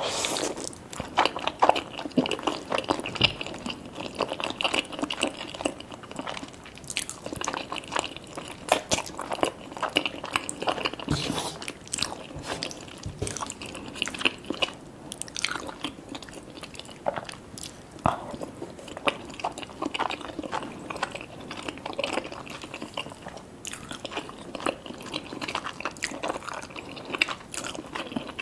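Mouth sounds of cheese lasagna and butter garlic toast being eaten: steady chewing with irregular crunchy bites and small clicks.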